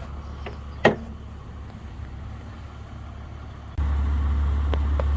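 A steady low hum with one sharp click about a second in; the hum suddenly gets louder a little before the end.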